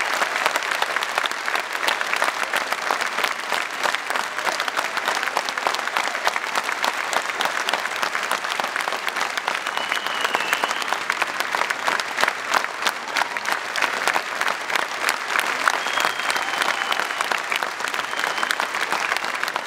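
Audience applauding steadily: dense, continuous clapping that holds an even level throughout.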